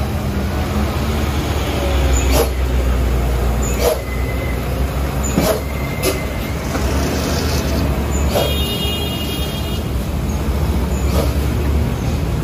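Heavy diesel trucks' engines running with a low rumble as they pull slowly round a steep hairpin bend, with short sharp sounds every second or two and a brief high tone about eight and a half seconds in.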